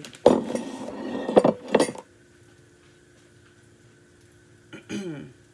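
Plates clattering and clinking for about two seconds, with three sharper knocks, as a plate is handled and set down on the counter.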